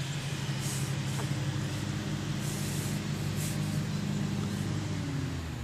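An engine running steadily with a low hum, which drops in pitch and stops near the end.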